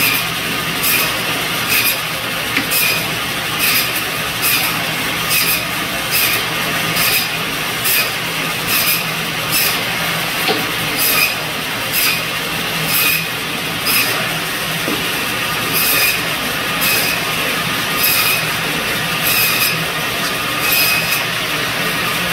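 Biro Model 55 meat band saw running steadily while bone-in pork loin is pushed through its blade, cutting thin chops. Each cut through the bone gives a short rasp, a little more than once a second.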